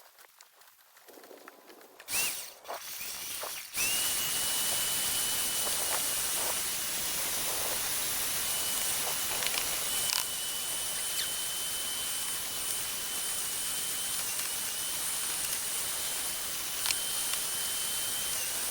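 SunJoe CJ603E electric wood chipper-shredder motor starting. There is a brief blip about two seconds in. About four seconds in it comes up to speed and runs steadily, a high whine over a loud hiss, with a few sharp clicks.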